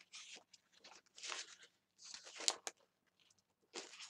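Sheets of foil-printed patterned paper rustling as they are flipped over by hand. There are about four brief rustles, the loudest with a sharp crackle about two and a half seconds in.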